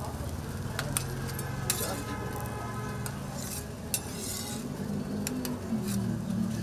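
Food sizzling on a flat-top griddle, with a metal spatula scraping and clicking sharply against the pan a few times.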